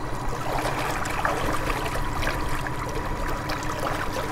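Propeller of a 48-volt Newman-type electric outboard motor churning water steadily at moderate speed, with a thin steady whine underneath.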